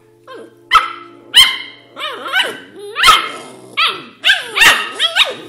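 Australian Shepherd puppies barking in play: about ten sharp, high-pitched yaps, coming closer together in the second half.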